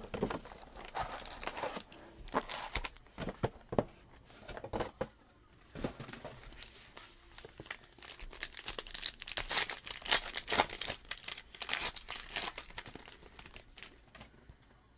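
Trading-card pack wrappers being torn open and crinkled by hand: a run of quick, sharp rips and rustles, loudest from about nine to twelve seconds in.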